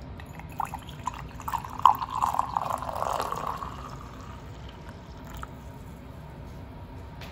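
Coffee poured from a glass carafe into a mug, a splashing pour that runs from about half a second to four seconds in and then tails off into a few drips.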